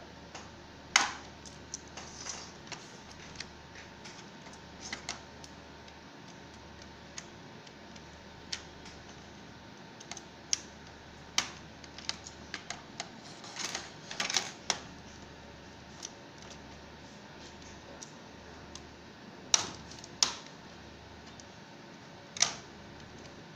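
Plastic snap clips of an Asus X554L laptop case clicking and cracking as the keyboard deck is pried away from the base along its edges: scattered sharp clicks and snaps, with a quick cluster about two-thirds of the way through.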